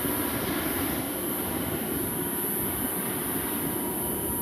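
Jet airliner on approach, its engines making a steady rushing noise with a faint high whine.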